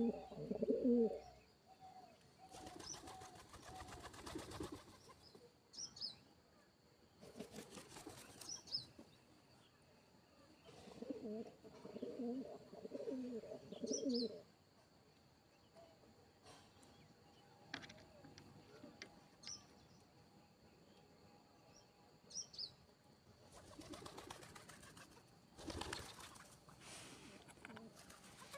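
Pigeons cooing in two bouts, near the start and again in the middle, between several noisy rustling bursts, with scattered faint high chirps of small birds.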